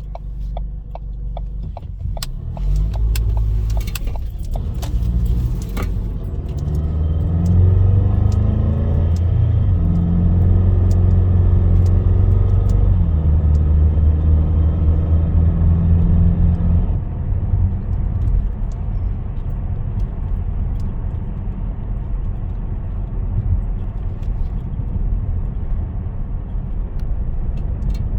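2016 Ford Escape Titanium's 2.0-litre four-cylinder engine and drivetrain under acceleration, with a drone that climbs slightly in pitch for about ten seconds: the noise the owner is reporting when accelerating. A few clicks and rattles come first, and about two-thirds of the way through it settles into a steady lower rumble.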